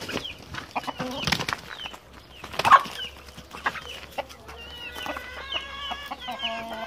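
Chickens scuffling, with wings flapping and a loud sudden cry a little under three seconds in. After that, hens give repeated clucking calls, agitated by a newly introduced rooster in the flock.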